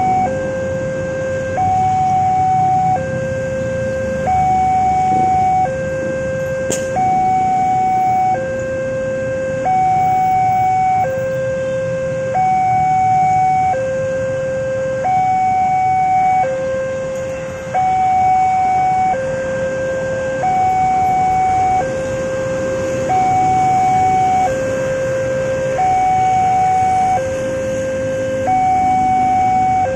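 Railroad crossing warning alarm sounding a two-tone signal: a higher and a lower tone alternate, each held about a second and a half, repeating steadily to warn that a train is approaching. Motorcycle engines run underneath.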